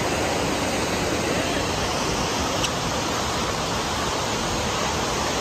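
Steady rush of water pouring through a lake dam's spillway into the river below.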